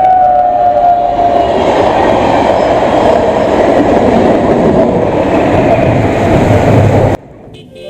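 A horn sounding a steady, slightly falling tone fades out in the first second and a half, over the loud, steady rumble and rattle of a passing train. The sound cuts off suddenly about seven seconds in.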